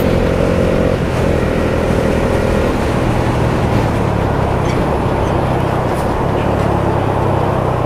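Motorcycle engine running steadily while being ridden on a road, under heavy wind rush on the helmet-mounted microphone.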